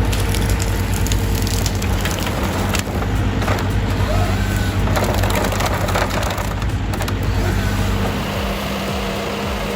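A forestry machine's diesel engine runs steadily while its Nisula 425C harvester head grips and works a tree, with dense cracking and splintering of wood. The crackling fades out about eight seconds in, leaving the engine hum.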